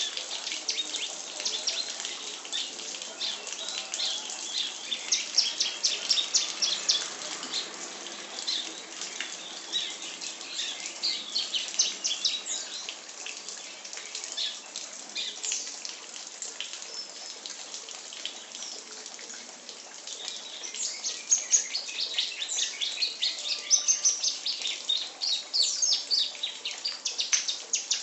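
A songbird singing a fast, nearly unbroken stream of high chirps and trills, loudest in runs near the start and again over the last third.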